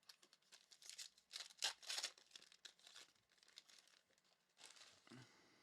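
Faint crackle and rip of a trading card pack wrapper being torn open and crinkled, loudest about one to two seconds in, with a second short rustle near the end.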